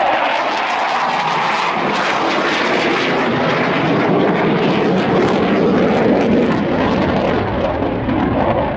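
Panavia Tornado's twin RB199 turbofan jet engines in flight: loud, steady jet noise. The high hiss drops away after about three seconds, leaving a deeper rumble.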